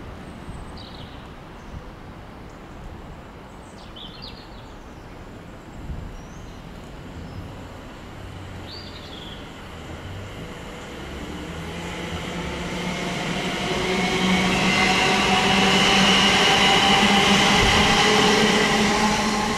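West Midlands Railway Class 730 electric multiple unit approaching and passing, growing from faint to loud over the last eight seconds or so. Its rolling noise carries a steady whine of several tones.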